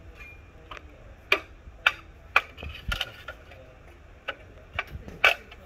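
Bamboo being split by hand, giving a run of sharp dry cracks and knocks, about two a second.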